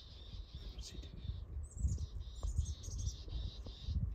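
Small birds chirping in repeated high, stuttering twitters, over a low uneven buffeting rumble on the microphone that is loudest about halfway through.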